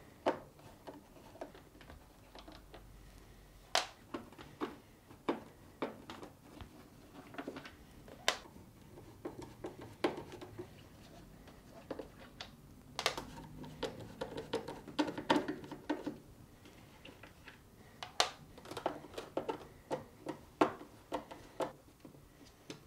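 A flat blade screwdriver backs small screws out of the plastic ice box cover of a Whirlpool French door refrigerator, making scattered light clicks and taps as the screws turn loose and are set down on the plastic. The clicks come in quicker clusters about halfway through and again near the end.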